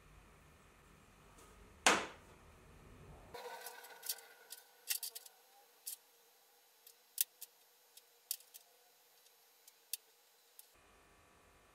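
A short steel tube set down on a metal workbench with one sharp ringing clink about two seconds in. It is followed by a scatter of small irregular clicks and scratches as a marker pen marks out the steel tube.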